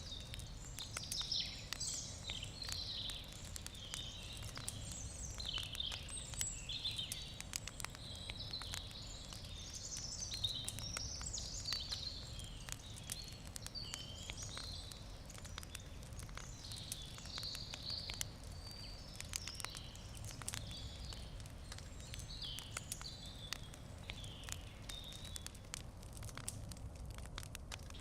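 Wood campfire crackling, with frequent sharp pops and snaps, while birds chirp and sing throughout.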